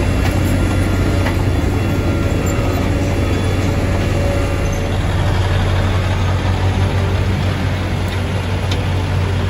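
Heavy diesel engines running steadily, a constant deep drone with a broad rumble.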